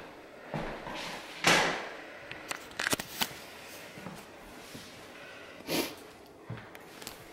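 Scattered soft knocks, sharp clicks and two short brushing sounds of someone moving about on a bare hardwood floor and handling gear, with a cluster of clicks about three seconds in.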